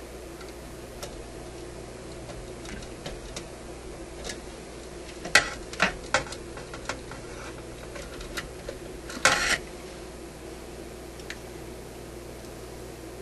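Small clicks and scrapes from handling a capacitor and working its wire leads onto the terminal lugs of a tube socket in a metal radio chassis. There are a few sharp clicks about five to six seconds in and a short scraping rattle about nine seconds in, over a steady background hum.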